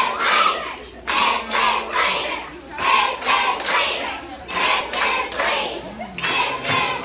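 A room full of children clapping in rhythm and chanting together, the claps and voices pulsing on a steady beat.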